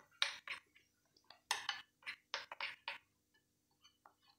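Metal spoon scraping and clinking against a ceramic bowl while stirring a thick flour-and-water batter: a run of quick clinks and scrapes, thinning to a few faint taps near the end.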